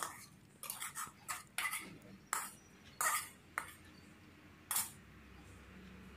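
Metal spatula scraping and knocking saucy soya chunks out of a metal wok onto a plate: about nine short scrapes and clinks, which stop about five seconds in.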